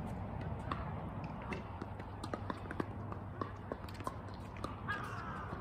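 Tennis balls being struck and bouncing on a hard court: irregular sharp pops of volleys off a racket and ball bounces, several a second, over a steady low outdoor rumble.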